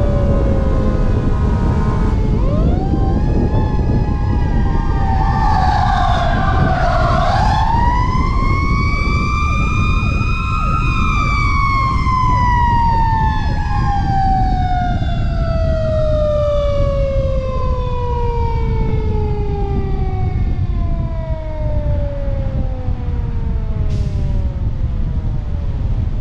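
Fire truck siren sounding while the truck drives at speed: the pitch rises, dips sharply, climbs again to a peak, then winds slowly down. Heavy wind and road noise on the roof-mounted microphone lie under it throughout.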